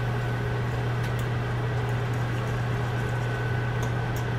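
Pork chops in lemon butter sauce sizzling in a skillet, a steady hiss with a few faint crackles, over a constant low hum.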